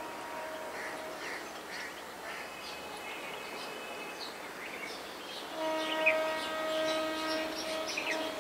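Electric multiple unit local train's horn, one long blast starting about two-thirds of the way in and held to the end as the train approaches. Birds chirp throughout.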